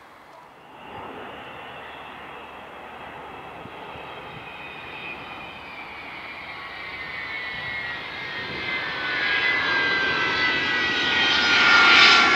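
Avro Vulcan bomber's four Rolls-Royce Olympus turbojets howling as the jet flies low toward and overhead: several whistling tones slide slowly down in pitch over the engine rush, which grows steadily louder to its loudest near the end.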